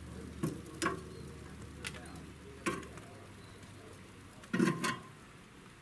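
Metal cooking utensil clicking and knocking on a barbecue grill's grate: a few light, separate clicks, then a louder clatter about four and a half seconds in. A low steady hum underneath cuts off about three seconds in.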